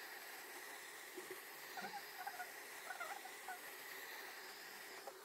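Hot-air rework gun blowing steadily over a phone's back cover to soften its adhesive: a faint, even hiss with a thin steady whine. A few faint short squeaks come in the middle.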